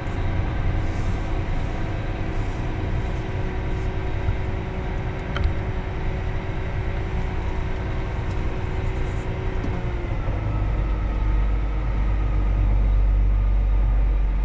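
John Deere 8RX370 four-track tractor's diesel engine running steadily as the tractor drives along, heard from inside the cab. About ten seconds in, a deeper low rumble grows and the sound gets a little louder.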